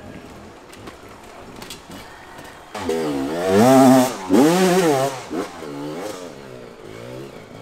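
Dirt bike engine revving up and down in quick throttle blips, getting loud about three seconds in as it comes close, then fading away.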